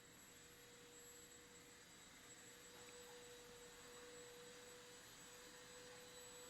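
Near silence with a faint, steady, pure tone that sets in just after the start and holds unchanged.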